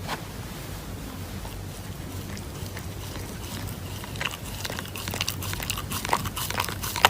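A pet chewing, with rapid crunchy clicks that grow denser and louder from about halfway through.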